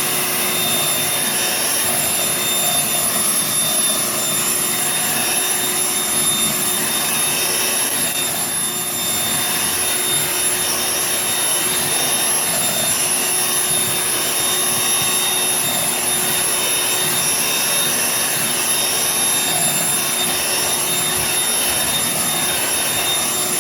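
Eureka 2-in-1 stick vacuum running steadily on its carpet setting: a constant motor whine over a rush of air, too loud.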